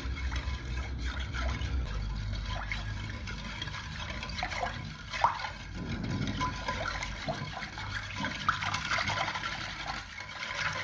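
Lemon juice, water and granulated sugar being stirred together in a wide bowl: liquid swishing with many small clicks and scrapes.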